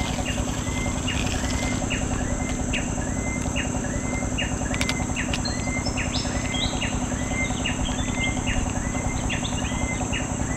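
Outdoor ambience: a bird calling over and over, short chirps about twice a second, over a steady high insect drone. A second, higher-pitched bird chimes in through the middle, with a low rumble underneath.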